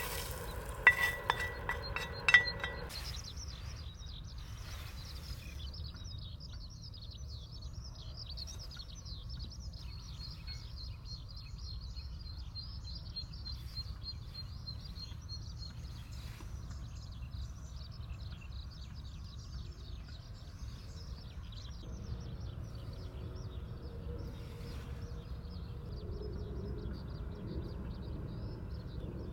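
A few sharp clinks of utensils on cookware in the first couple of seconds, then a skylark's long, unbroken high warbling song over a low steady wind rumble.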